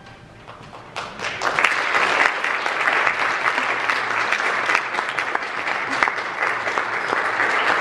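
Audience applause that starts about a second in, right after a violin piece ends, and keeps up as steady, dense clapping.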